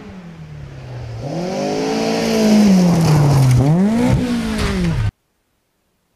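Rally car engine coming closer on a gravel stage, climbing in revs, easing off, then revving hard again, with a light crackle on top. The sound cuts off suddenly about five seconds in.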